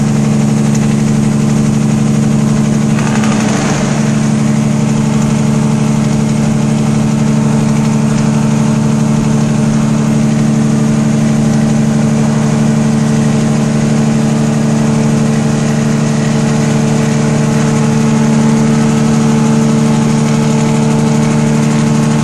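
Heavy truck's diesel engine running steadily, heard inside the cab as a loud, even low drone while the rig coasts down a long grade. A brief rush of noise comes about three seconds in.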